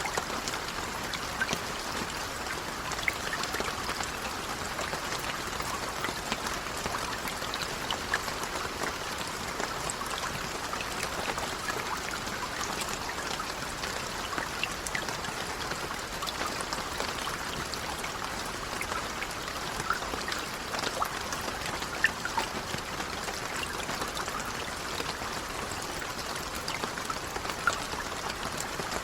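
Light rain falling steadily, a continuous patter of many small drops with occasional louder individual drips.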